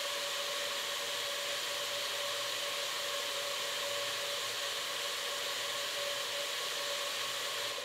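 Rotating rigs of fluorescent tubes spinning at full speed: a steady whirring with a faint steady whine. Near the end the power cuts and the sound dies away over about a second.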